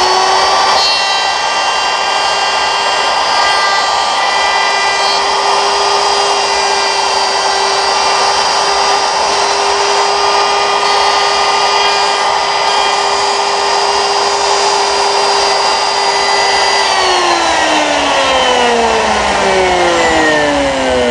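Porter-Cable Model 100 router motor running at a steady high whine while routing out a hinge mortise in wood through a clamped jig. About four seconds before the end it is switched off and winds down, its pitch falling steadily.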